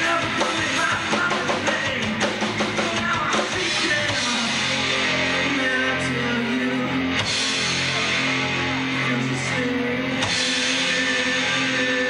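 Live rock band with loud electric guitars, bass and drum kit, heard from the audience. The first few seconds carry fast, busy drum hits; from about four seconds in, the guitars hold long sustained chords.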